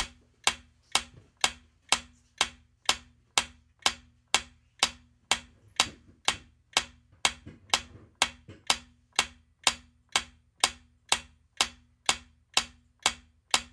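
Clock-ticking sound effect for a quiz countdown timer: sharp, evenly spaced ticks, about two a second.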